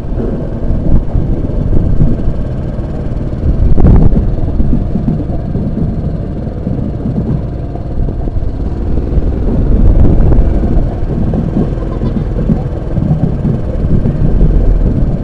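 Motorcycle riding along, heard from a camera mounted low by its front wheel: engine rumble mixed with heavy wind buffeting on the microphone, with a brief louder jolt about four seconds in.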